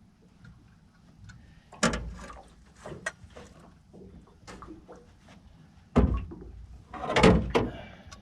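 Irregular knocks and thumps with small clicks in between, as a freshly caught flathead and the fishing gear are handled. There are two sharp loud knocks, about two and six seconds in, and a longer clatter near the end.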